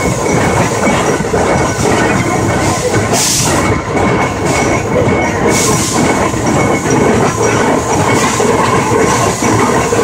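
Climax geared steam locomotive under way, heard up close: a steady clatter of running gear and wheels on the rails, with two brief hisses a few seconds in.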